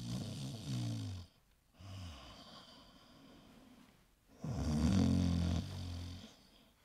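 A man snoring: deep, drawn-out snores, one fading about a second in, a weak one near two seconds, and a longer, louder one starting about four and a half seconds in.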